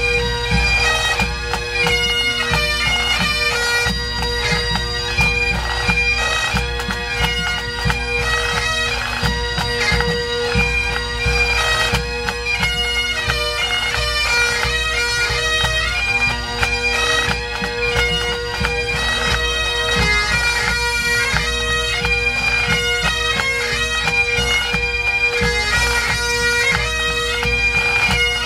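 Pipe band playing: massed Great Highland bagpipes sound a melody over their steady drones, with snare and bass drums keeping time underneath.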